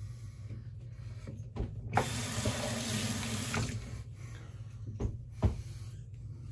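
Tap water running into a sink for under two seconds, starting and stopping abruptly, with a few sharp knocks before and after it.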